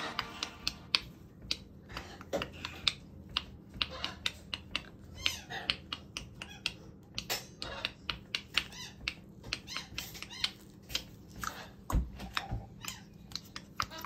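Pet macaws, a Catalina macaw and a hyacinth macaw, on a hanging rope-net perch making quick, irregular clicking and tapping sounds, several a second, with a few short calls mixed in and one louder knock about twelve seconds in.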